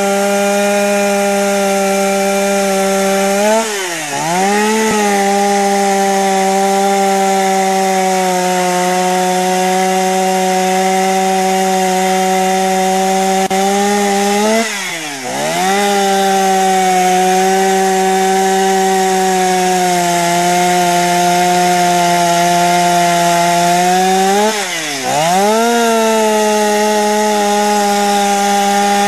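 Chainsaw running at high revs, cutting into wood. Its pitch dips sharply and climbs back three times, about ten seconds apart.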